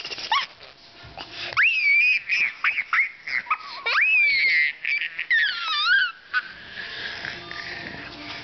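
Toddler's shrill scream-laugh while being tickled: a string of high, whistle-like squeals with short gasps between, the last one wavering and falling, then quieter near the end.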